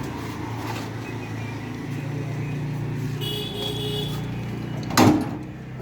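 A steady low motor hum, with a brief high-pitched tone a little past three seconds in and one sharp knock about five seconds in.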